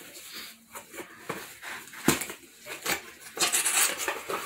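Bubble wrap and plastic packaging rustling and crinkling as a boxed Funko Pop is unwrapped by hand, with scattered clicks and a sharp tap about two seconds in, and a louder crinkling rustle near the end.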